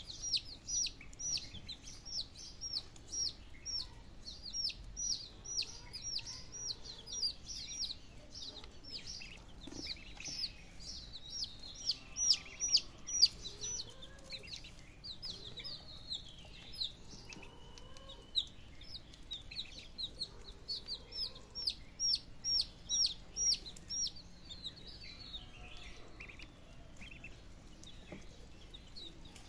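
Baby chicks and ducklings peeping: runs of short, high, falling peeps, about three a second, with quieter stretches in between.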